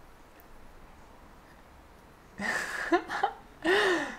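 Quiet room tone, then two short, breathy non-word vocal sounds from a person, about two and a half seconds in and again just before the end.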